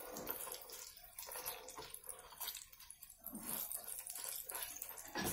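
Wooden spatula stirring and scraping roasting garlic, chana dal, curry leaves and dried red chillies around a kadhai: irregular scratchy scrapes and rattles over a faint hiss.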